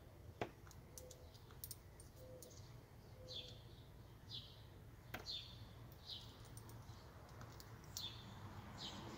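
A few sharp clicks of metal washers being set down on a board, the loudest about half a second in and another about five seconds in, against a bird repeating short downward-sweeping chirps, often two close together.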